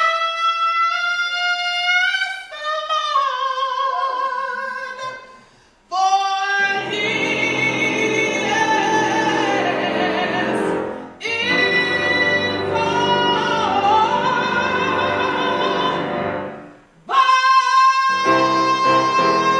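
A woman singing live into a handheld microphone with grand piano accompaniment, in three or four phrases with short breaths between them. Near the end she holds a long steady high note.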